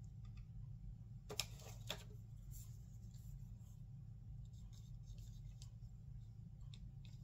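Steady low hum with light handling sounds: a couple of faint clicks with a little rubbing about a second and a half in, then a few fainter ticks.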